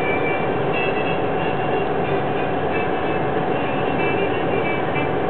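Slow freight train of CSX autorack cars rolling through a grade crossing: a steady, loud rumbling noise from the passing cars, with thin high tones coming and going over a steady hum.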